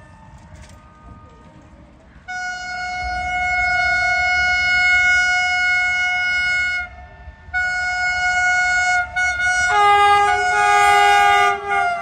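Vande Bharat Express electric train sounding its horn in long held blasts as it approaches. One long blast starts about two seconds in, followed by a short break and another blast. A lower note joins the horn about two seconds before the end.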